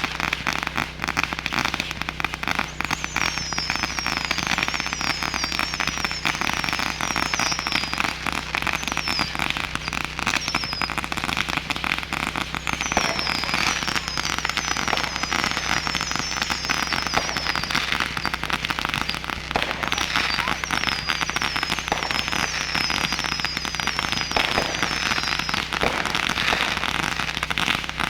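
Fireworks finale: dense, continuous crackling and popping with no break, joined at times by series of short high falling whistles.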